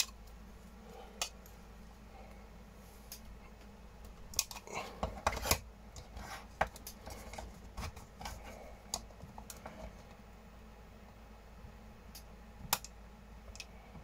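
Scattered small clicks and scrapes of 3D-printed plastic parts and fine-nose pliers as a snug retaining pin is squeezed into the toy cement mixer's stand, with a quick run of clicks about five seconds in.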